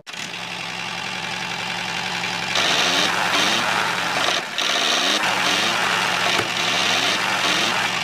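A small motor or engine running steadily, getting louder about two and a half seconds in.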